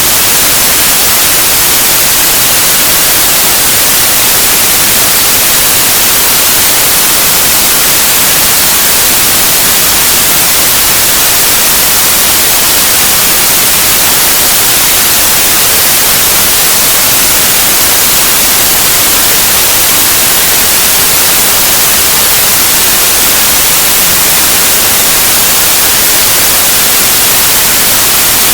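Continuous loud synthetic white noise, a steady even hiss with the most energy in the highs and no change over time.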